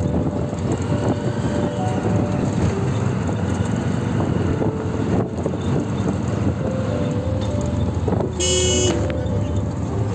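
Auto-rickshaw ride: steady engine and road noise from inside the moving vehicle. A horn toots briefly about eight and a half seconds in.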